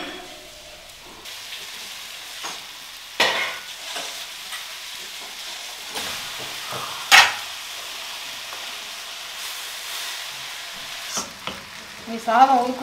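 Seasoned rice frying with a steady sizzle in a steel pan on a gas stove while it is stirred with a wooden spatula. Utensils knock sharply against the pans twice, about three and seven seconds in, the second louder.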